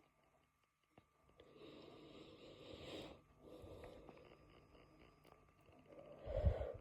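A person's quiet breathing between burps: two long, soft breaths, then a short, louder, low sound just before the end.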